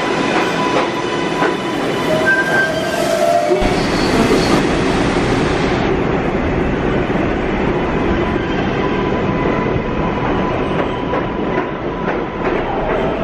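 Subway train moving along the platform, its wheels clattering over the rail joints with a steady rumble and brief wheel squeals. The rumble grows suddenly heavier about a third of the way in.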